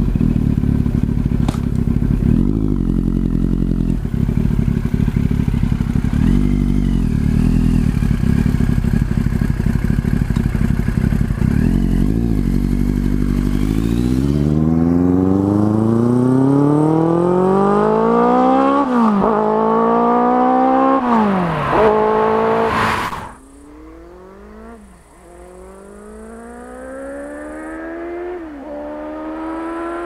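Yamaha FZS1000 inline-four with a Mivv GP exhaust idling with a few short throttle blips, then pulling away hard, its pitch climbing and dropping with each upshift. About two-thirds in the sound falls sharply to a quieter, more distant run that keeps shifting up through the gears.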